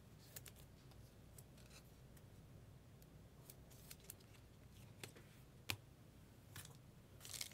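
Near silence with scattered faint plastic clicks as trading cards in clear plastic sleeves and top loaders are handled. A louder foil-wrapper crinkle starts near the end as the next card pack is picked up.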